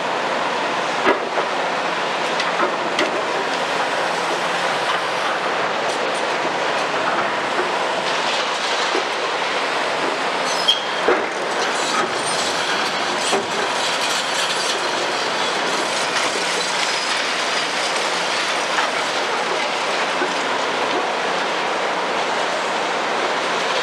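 Caterpillar 352F high-reach demolition excavator at work, a steady din of engine, hydraulics and dust-suppression water spray. Scattered sharp cracks and knocks of concrete breaking and debris falling cut through it, the loudest about a second in and around eleven seconds in.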